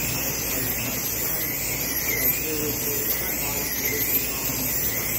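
Electric slot cars racing around the track: the high whine of their small electric motors rises and falls over and over as the cars lap.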